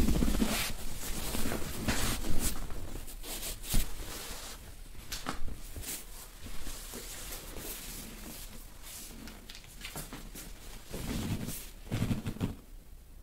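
Dry massage over clothing: irregular rustling of fabric and bedsheet as hands press and rub the body, with scattered soft knocks and a couple of sharper taps.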